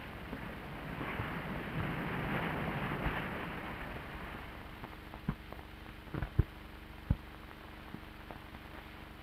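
Ocean surf: a wave surges in, swelling over the first few seconds and then washing back to a low hiss. A few sharp clicks and pops follow in the second half.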